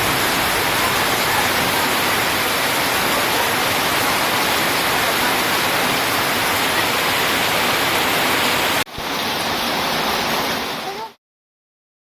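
Heavy rain falling as a steady, dense hiss, cut off abruptly once just before the last few seconds and then fading out to silence.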